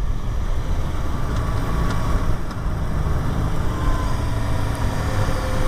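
Steady low engine rumble with faint, thin whining tones that drift slowly in pitch.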